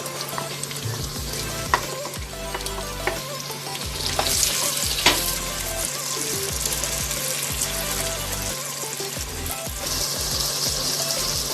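Onions sizzling as they fry in oil in a pot, with the clicks and scrapes of a spoon stirring them against the pot. The sizzle grows louder about four seconds in and again near the end.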